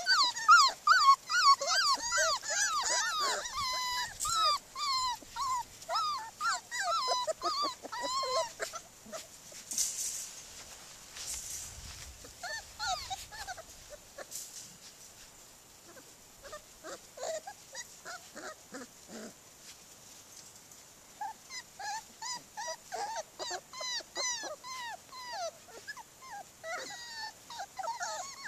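Several young border collie puppies whining and whimpering in a rapid string of short, high-pitched cries. The cries come thickly for the first several seconds, thin out in the middle, and pick up again near the end.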